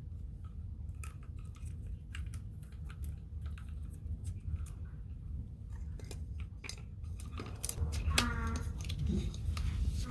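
Light clicks and clatter of small hard objects being handled, over a steady low hum. A short pitched voice-like sound comes in near the end.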